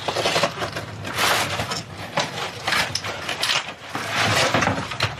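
Cardboard packaging rustling and scraping in a run of noisy swishes as flat-pack kitchen parts are pulled out of the box, strongest about a second in and again near the end.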